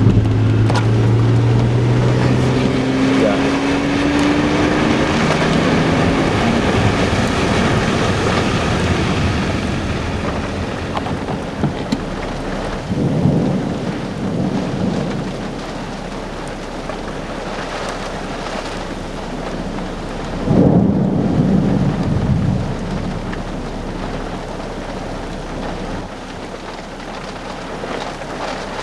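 Rain falling steadily through a thunderstorm, with two low rolls of thunder, about 13 seconds in and about 21 seconds in. In the first few seconds a pitched hum rises over the rain.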